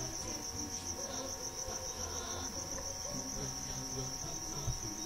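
A cricket trilling continuously at a high pitch, with faint low background murmur beneath.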